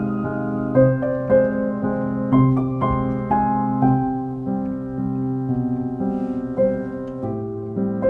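Background instrumental music: single notes struck one after another over held low tones.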